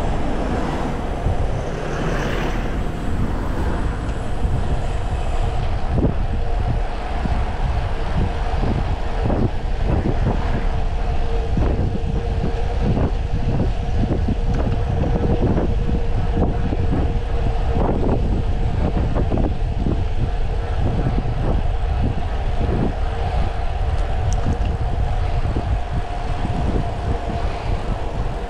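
Heavy wind rumble on the microphone from a Brompton folding bike descending fast, with a steady hum and frequent short rattles and knocks from the bike over the road surface.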